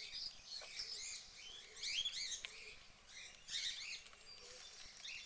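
Small songbirds chirping, with clusters of short, high chirps that rise and fall and come in quick succession.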